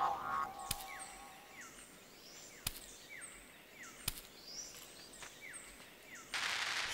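Faint tropical forest ambience: short falling chirps repeat about once a second, with higher calls above them and a few sharp clicks. A short rush of noise comes near the end.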